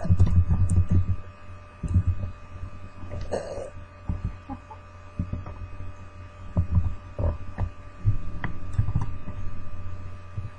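A woman burping: a deep, low burp right at the start, shorter low ones through the middle, and another drawn-out low burp near the end.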